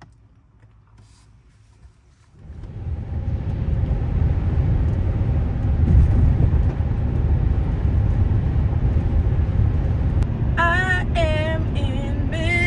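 Steady road and engine rumble inside a moving 2015 Kia Sedona minivan's cabin, coming in suddenly about two seconds in after quiet. Near the end a song with a singing voice starts over it.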